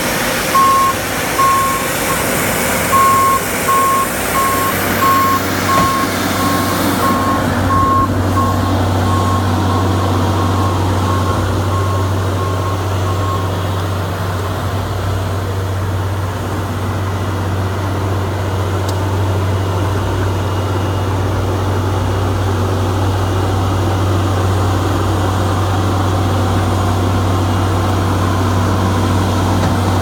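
Diesel skid steer and excavator running, with a backup alarm beeping about twice a second that fades out about a third of the way through. After that, a steady low engine drone.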